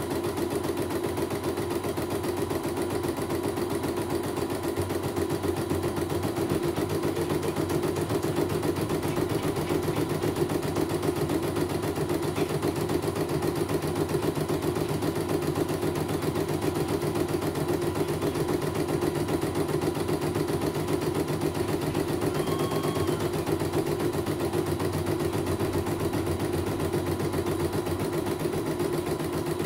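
CNY computerized embroidery machine stitching a design: the needle bar runs in a fast, even rhythm while the embroidery hoop moves the fabric under the needle.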